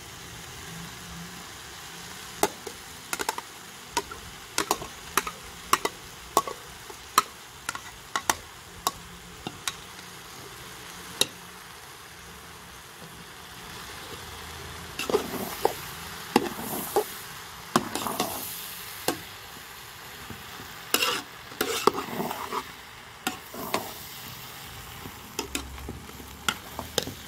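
A perforated metal skimmer stirring mayonnaise into a large metal pot of frying chicken and vegetables: a steady sizzle underneath, with many sharp, irregular clinks and scrapes of the spoon against the pot, coming in bunches in the second half.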